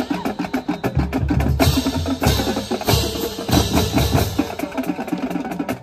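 High school marching band drumline playing a fast cadence: rapid snare drum strokes over bass drum beats, with cymbal crashes every second or two.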